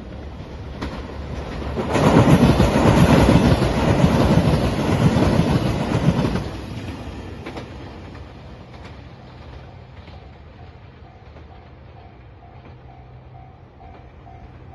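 Train passing over a level crossing at speed, wheels clattering over the rail joints for about four seconds, then dying away. Near the end a level-crossing warning bell starts ringing, about two strokes a second.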